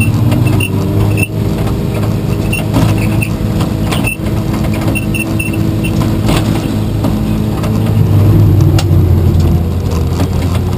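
A car engine running loudly and continuously, its pitch drifting slightly up and down, with scattered light clicks and rattles on top.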